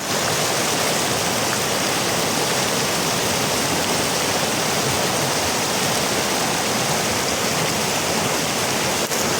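Fast-flowing river water rushing steadily and loudly, with a brief dip in level near the end.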